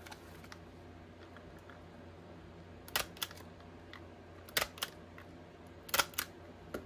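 Quiet handling of craft materials at a work table, with three pairs of sharp small clicks about 3, 4.6 and 6 seconds in.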